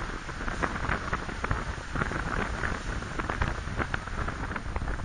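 Wind buffeting the microphone on an exposed hilltop: a rough low rumble and hiss broken by many short crackles.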